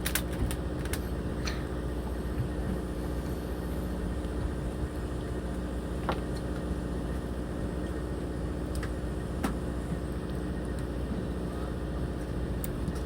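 Steady drone of a fishing boat's engine running, with a few sharp clicks and knocks scattered through it.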